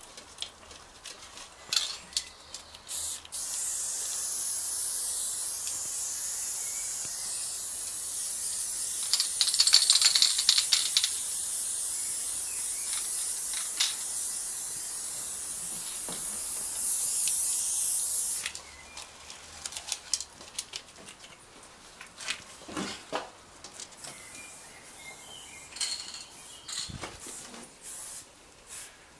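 Aerosol spray-paint can spraying in one long continuous hiss, with a louder, crackly stretch near the middle, then cutting off. Scattered short clicks and knocks follow.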